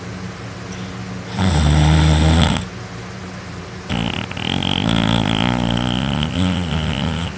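A person snoring loudly in their sleep, mouth open: a short snore about a second and a half in, then a longer one of about three seconds starting about four seconds in. A steady low hum runs underneath.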